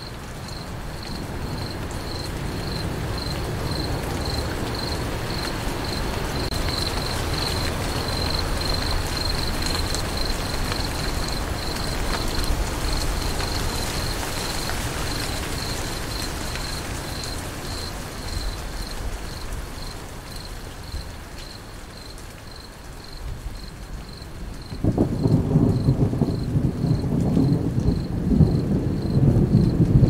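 Crickets chirping in a steady train of short, high-pitched pulses over rain, with a low rumble of thunder that swells and fades, then a louder rolling rumble of thunder near the end.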